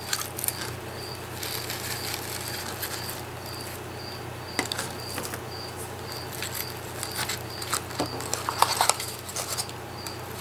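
Hands handling dried flower sprigs and paper pieces on a paper medallion: light rustling, crinkling and small taps, louder around the middle and near the end. A faint high chirp repeats about twice a second underneath.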